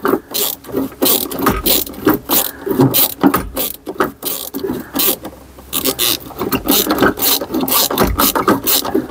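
Rapid, irregular metallic clicking and scraping of a hand tool turning a screw, like a ratchet being worked back and forth.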